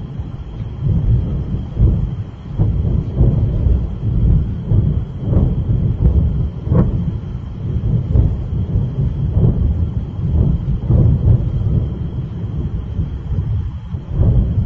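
Continuous low rumble of distant explosions, with a sudden boom every second or so, the sharpest about seven seconds in: ammunition going off in a large fire.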